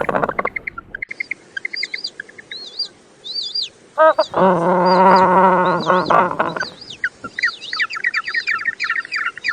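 A penguin braying: one loud, long, pulsing call a little past four seconds in, over continual high chirping and twittering of birds.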